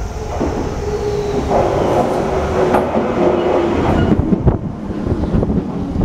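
Shizuoka Railway stainless-steel electric commuter train pulling into the station alongside the platform. It starts with a rumble and a held whine that falls slightly as the train slows. From about four seconds in, the wheels clack over the rail joints as the cars pass close by.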